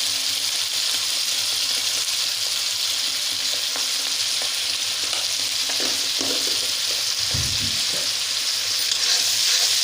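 Wet spice paste of ground tomato, chilli, ginger, garlic and coriander leaf sizzling steadily in hot mustard oil in a kadai, with a few light knocks of the stirring spoon.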